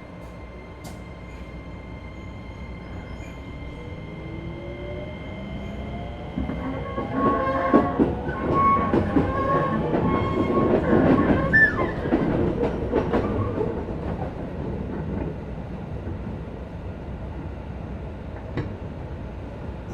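Keisei 3050-series train's Toyo IGBT VVVF inverter and traction motors, heard from inside a motor car as it pulls away. Steady inverter tones give way to a rising whine as the train gathers speed, and the wheels clack over rail joints, loudest around the middle.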